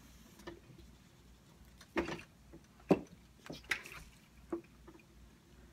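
Dry-erase marker drawn across a whiteboard: a few short squeaks and scratches, spread over several seconds, the loudest about three seconds in.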